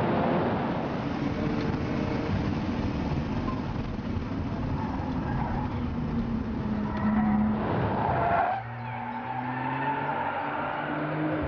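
Turbocharged flat-six of a RUF Porsche-based sports car at full throttle on a racetrack, its engine note climbing under hard acceleration with road and wind noise. About eight and a half seconds in it drops sharply at an upshift, then climbs again in the next gear.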